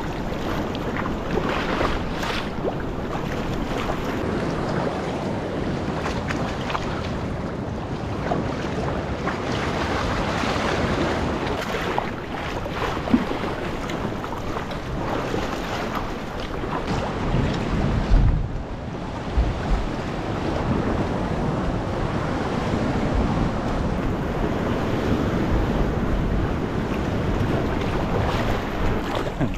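Sea water washing and splashing around a kayak under way, with wind buffeting the microphone. A stronger gust of wind rumble comes about two-thirds of the way through.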